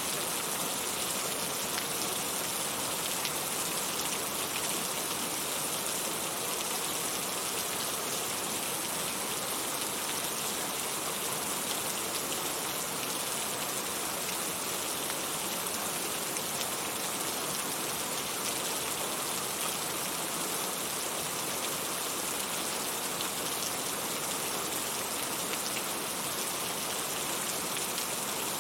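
Heavy rain falling steadily, a dense, even patter with no thunder claps.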